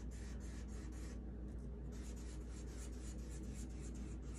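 Pen tip scratching on sketchbook paper in many short, quick strokes as curly fur lines are drawn, faint over a steady low room hum.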